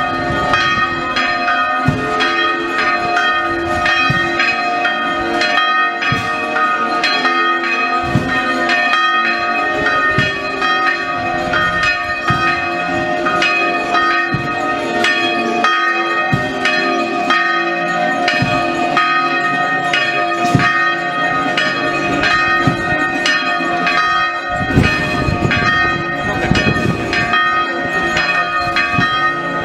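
Several church bells ringing together, struck over and over so their tones overlap and hang on, with crowd voices underneath.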